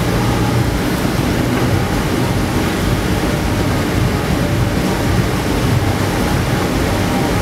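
Strong wind blowing on the microphone: a loud, steady rushing noise with a heavy low rumble.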